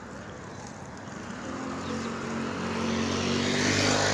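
Street traffic close by: a vehicle engine's steady hum comes up and grows louder from about a second and a half in, and a car passes close near the end with a rush of noise.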